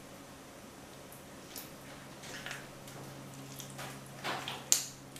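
Raw lamb heart being bitten, torn and chewed: scattered soft wet squelches of teeth working through the raw muscle, with a sharp click near the end.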